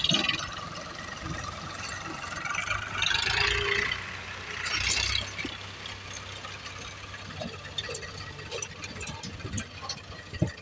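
Diesel engine of a heavy machine running steadily, with two brief rushing swells of noise about three and five seconds in.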